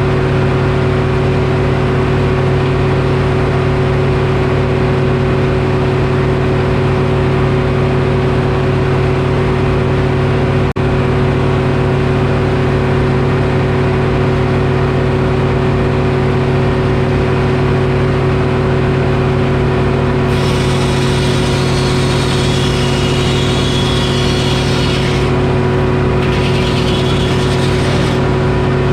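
Detroit Diesel engine powering a Frick sawmill, running steadily under a constant drone. About two-thirds of the way in, a higher hissing whine joins twice, with a short break between: the saw cutting through the oak log.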